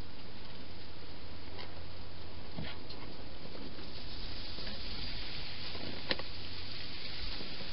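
A wild hedgehog eating inside a plastic feeding box: a few faint clicks and crunches, the sharpest about six seconds in, over a steady hiss.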